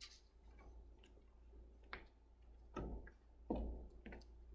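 Footsteps: a few separate steps roughly two-thirds of a second apart, the fourth the loudest, after a faint click at the start.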